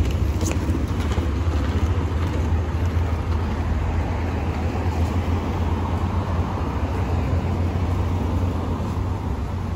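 Steady low rumble of city street traffic, coming in suddenly and holding evenly.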